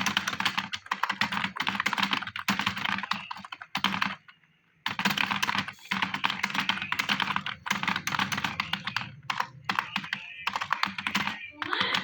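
Fast typing on a computer keyboard, a dense run of key clicks during a speed typing test. The typing stops for just under a second about four seconds in, then resumes at the same pace.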